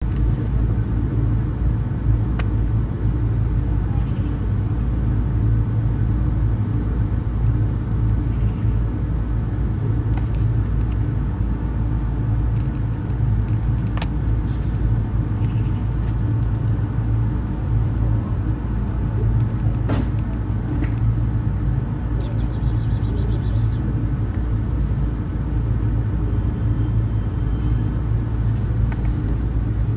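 Steady low mechanical rumble with a constant hum, like a running engine, with a few faint clicks.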